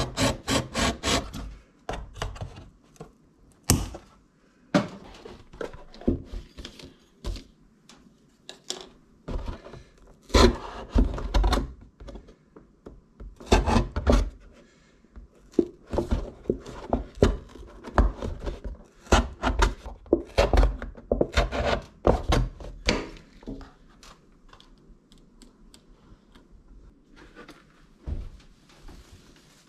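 A cardboard milk carton being cut and handled on newspaper: a quick run of cutting strokes at the start, then scattered knocks and rubs of the carton and tools, growing fewer and fainter near the end.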